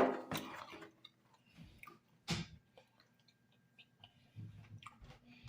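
Faint handling noises as an extendable snore-stopper novelty gadget is turned over in the hands: scattered small clicks and rubs, with one sharper knock about two seconds in.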